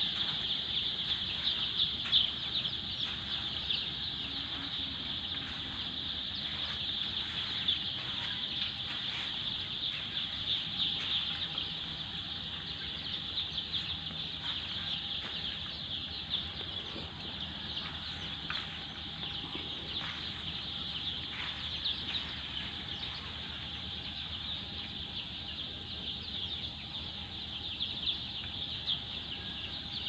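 A large flock of four-day-old chicks peeping without a break, a dense mass of high, short cheeps, with a faint steady hum underneath.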